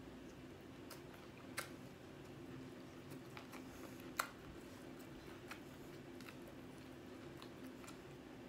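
Quiet chewing of Popeyes fried chicken, with scattered small mouth clicks and two sharper crunchy clicks about one and a half and four seconds in.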